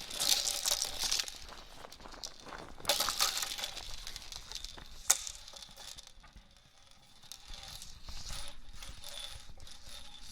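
Hula hoop being spun, rattling and swishing in uneven bursts, with a sharp click about five seconds in and a quieter stretch soon after.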